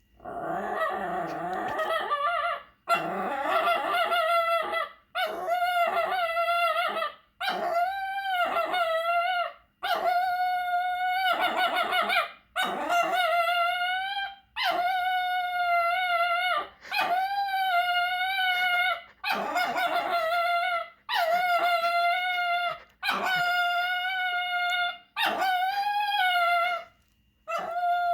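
A dog making a run of about a dozen long, howl-like vocal calls, each lasting a second or two with short breaths between. Each call holds a fairly steady, wavering pitch, an odd sound for a dog.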